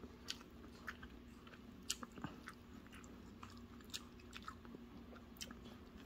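A person chewing food close to the microphone: faint, irregular small clicks and mouth smacks, a dozen or so across a few seconds.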